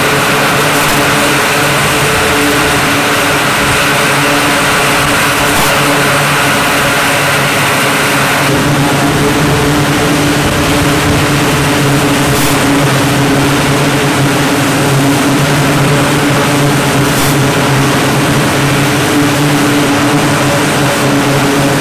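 Loud, steady engine noise of flight-deck machinery and aircraft running, a constant low hum under a noisy roar that shifts in tone about eight seconds in.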